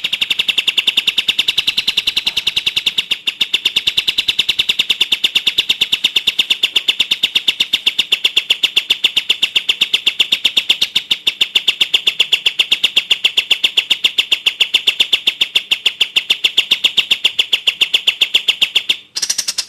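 A songbird's long run of sharp, evenly repeated high notes, about five a second, kept up without a pause until a brief break near the end, after which it starts again.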